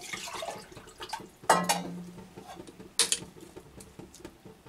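Water being poured into a stainless steel pot of cut potatoes, then a steel spoon knocking against the pot twice as it stirs, the first knock ringing briefly.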